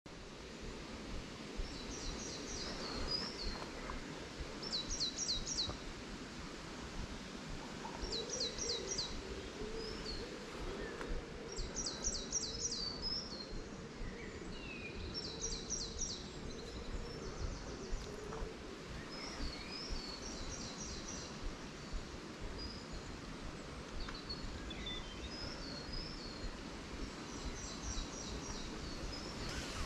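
Woodland songbird singing, repeating a short phrase of quick high falling notes about every two seconds.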